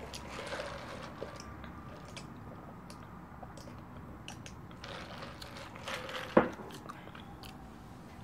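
Close-miked eating and drinking sounds: soft chewing and small mouth clicks, and a drink sipped through a straw, with a sharp click about six seconds in.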